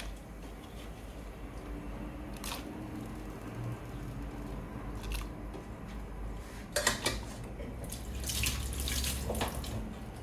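Raw potato strips being put by hand into a pot of hot water: water splashing and sloshing, with a few sharp splashes, the loudest cluster about seven seconds in.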